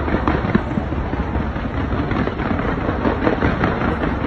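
Fireworks going off in a dense barrage: rapid crackling pops and bangs over a constant low rumble.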